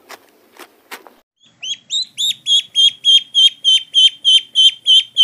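A duckling peeping repeatedly: loud, high, down-slurred peeps at about three to four a second, starting near the middle. Before that come a few soft crunches of a cow cropping grass.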